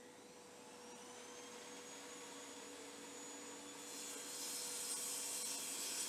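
Table saw running with a steady hum, heard faintly; from about four seconds in a high hiss joins it as the blade cuts across a chipboard strip pushed on a miter gauge.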